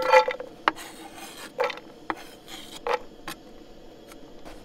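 Cooking gear being handled: a handful of short scrapes and clinks of metal cookware and utensils, the loudest right at the start.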